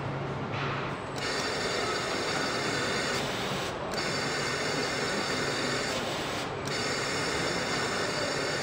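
Car assembly-line machinery running: a steady mechanical hum, with a high whine that sets in about a second in and drops out briefly twice.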